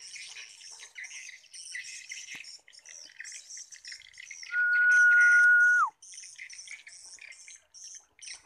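Small birds chirping and twittering continuously. Near the middle a loud, steady whistle holds one pitch for about a second and a half, then slides down as it stops.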